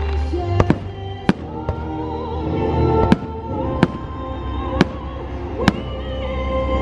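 Fireworks bursting in about eight sharp bangs, spaced irregularly, over the fireworks show's music playing on loudspeakers.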